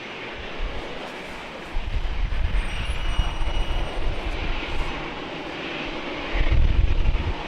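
Jet airliner engines running, a steady rushing noise, with heavier low rumbles surging about two seconds in and again near the end.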